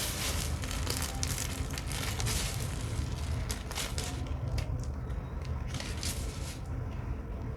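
Brittle, puffed microwaved soap crushed in a hand, crumbling with dense crackling for the first few seconds, then scattered crackles and another dense burst near the end.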